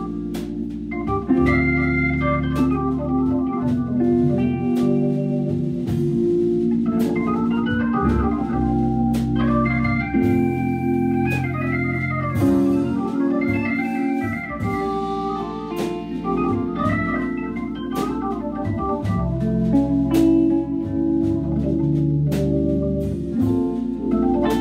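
Hammond B3 organ playing jazz, with held chords and moving melody lines, over drums with frequent cymbal and drum strikes.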